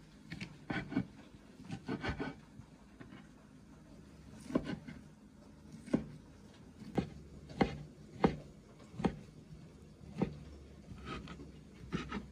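Kitchen knife chopping cooked pork stomach on a wooden cutting board: irregular knocks of the blade on the wood, about one a second.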